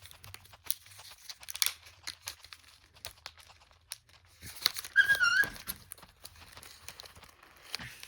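Plastic memory-card packaging crinkling and crackling as it is worked open by hand, with scattered clicks. About five seconds in, a brief high warbling squeak is the loudest sound.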